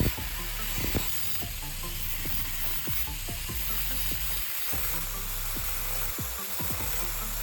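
Steady grinding hiss as the end of a small threaded metal rod is ground to a sharp point, with faint scattered clicks.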